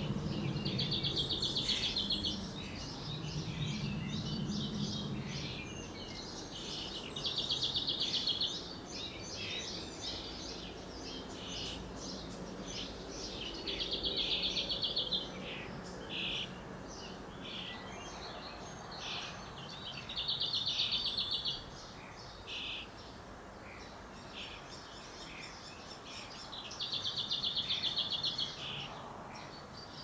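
A nearly fledged European starling nestling begging for food: a rapidly pulsed, buzzy call about a second and a half long, repeated five times roughly every six and a half seconds, with shorter, softer chirps in between.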